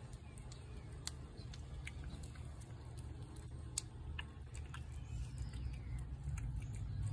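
A cat eating wet food from a plate: scattered faint chewing and licking clicks over a low background rumble.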